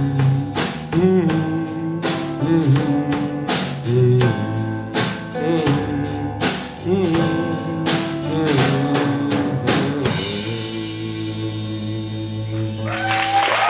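Live band playing the instrumental close of a rock song: the drum kit beats steadily under guitar and held notes, then about ten seconds in the drums stop and a final chord rings on.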